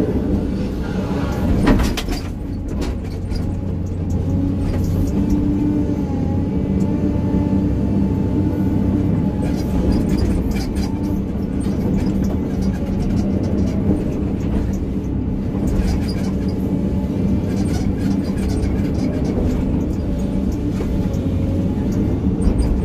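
Excavator's diesel engine running steadily under working load, heard from inside the cab, with a few sharp knocks and scrapes as the bucket works stony ground during grading.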